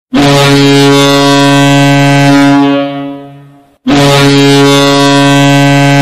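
Ice hockey goal horn blowing two long, deep blasts, the first fading out just before the second begins.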